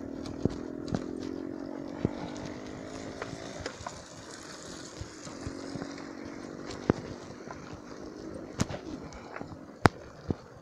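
Bicycle ridden over a rough, wet dirt road: the frame and handlebars rattle, with sharp knocks over the bumps, the loudest two near the end. A steady droning hum runs underneath, fading about four seconds in and returning for a few seconds later.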